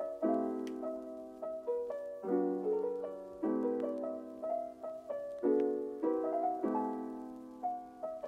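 Background piano music: chords struck every second or two, each fading away, with single melody notes above.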